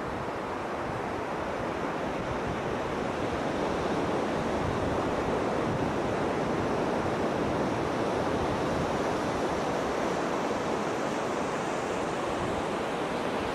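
Steady rush of flowing water from a stream, an even wash of sound that grows slightly louder a few seconds in.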